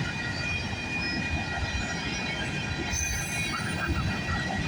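Freight train of grain hopper cars rolling past, its steel wheels making a steady rumble on the rails with thin, high-pitched wheel squeal ringing over it.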